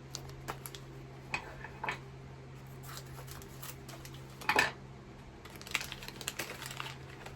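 Small plastic pieces and packaging being handled and unwrapped: scattered light clicks and crinkles, with one louder rustle about four and a half seconds in, over a steady low hum.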